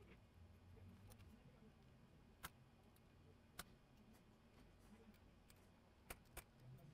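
Near silence broken by four faint, sharp ticks, spaced unevenly: a razor blade catching on the hard plastic shell of a USB flash drive as it is worked along the seam.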